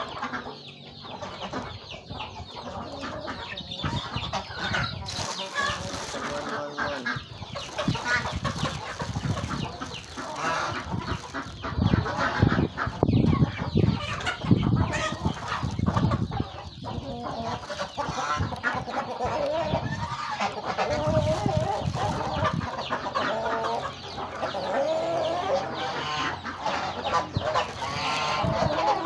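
A flock of domestic chickens clucking continuously while feeding, many birds calling over each other, with the calls a little louder around the middle.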